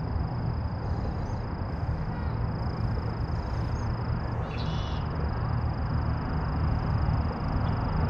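Outdoor bayou ambience: a low rumble of wind on the microphone under a steady, thin, high-pitched drone. A short bird call comes about four and a half seconds in.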